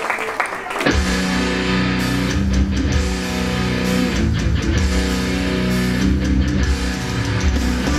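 Applause and clapping, then about a second in a loud rock song starts over the PA: distorted electric guitar and bass over drums.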